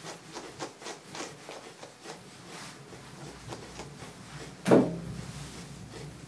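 A brush being drawn through a dog's matted curly coat in repeated short scratchy strokes, a few a second, as the mats are worked out. About three-quarters of the way through there is one louder knock.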